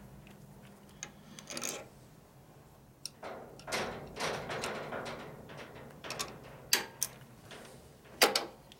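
Small metal parts clicking, knocking and scraping under the hands as a brake line fitting and its washers are worked onto a motorcycle's brake master cylinder. There are a handful of sharp clicks and a longer scraping rustle a few seconds in.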